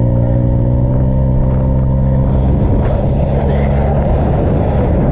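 Side-by-side utility vehicle's engine running at a steady, even speed, loud and close; about four seconds in the steady tone breaks up into a rougher rush of noise.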